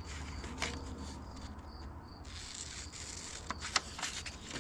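Scissors cutting through a paper template: a sharp snip about half a second in and a few quick snips near the end.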